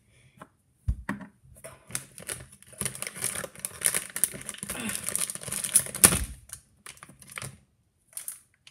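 Plastic blind-bag packaging crinkling and rustling as it is handled and opened by hand, with scattered clicks and a sharper knock about six seconds in.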